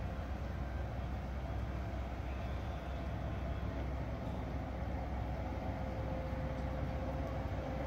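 PKP Cargo electric locomotive running light along the track, a steady low rumble with a steady tone that grows stronger about five seconds in.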